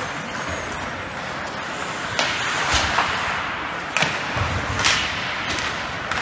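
Ice hockey play around the net: skates scraping on the ice with four sharp cracks of sticks and puck striking, bunched in the middle.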